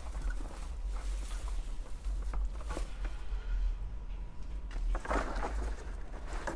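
Rustling and crackling of sweet potato vines being handled and pushed into the bottom of a container, with a denser burst of rustling about five seconds in. A steady low rumble runs underneath.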